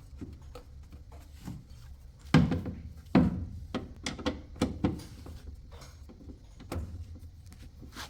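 Scattered clicks and knocks of hands working the unbolted drain motor loose from a top-loading washing machine, with two louder knocks about two and three seconds in.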